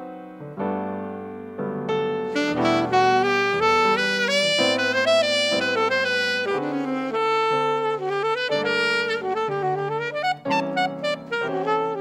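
Saxophone and piano playing a jazz ballad: the saxophone carries a flowing melodic line of quick, gliding notes over sustained piano chords, growing fuller about two seconds in.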